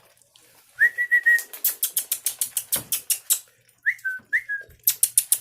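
Puppies lapping and smacking at wet food, a quick run of sharp wet clicks, with short high-pitched puppy squeaks about a second in and twice more near four seconds.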